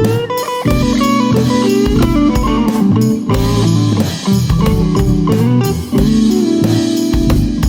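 Yamaha SG-2000 electric guitar playing a bluesy jazz-funk lead line of single notes, over bass guitar and drums.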